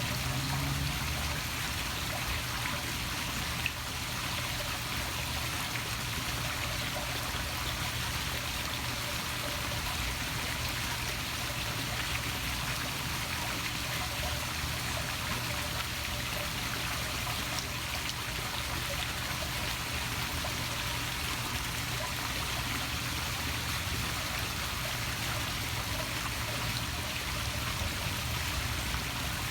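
Small poolside waterfall splashing steadily into a swimming pool.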